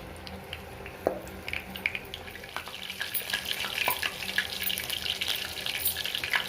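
Cumin seeds and curry leaves crackling and spitting in hot oil in a kadai for a tempering. Scattered pops start about a second in and grow denser from about a second and a half.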